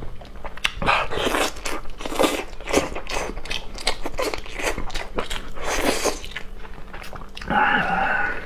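Close-miked eating: repeated crunchy bites and chewing, irregular, several a second. A brief pitched sound cuts in near the end.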